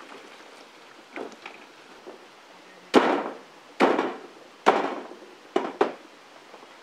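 A heavy blade chopping through a mutton carcass's rib cage on a corrugated sheet: five sharp chops, the first four about a second apart and the last two in quick succession, with a few lighter knocks before them.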